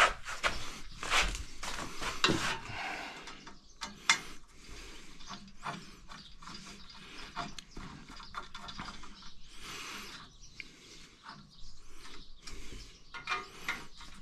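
Hand ratchet clicking in short, irregular runs as bolts are run into the roof rack parts, snugged in but not torqued down.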